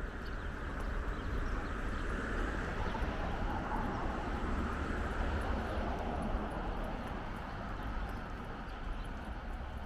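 City traffic noise that swells over several seconds and then fades as a vehicle passes, with faint footsteps on paving underneath.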